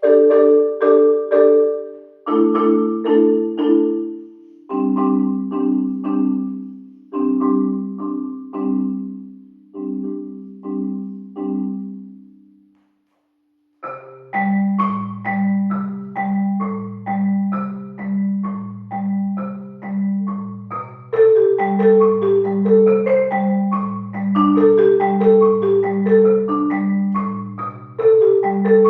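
Marimba music: rows of repeated mallet strokes, each note ringing and fading. The playing stops for about a second just before halfway, then comes back fuller, with low bass notes under repeated higher figures.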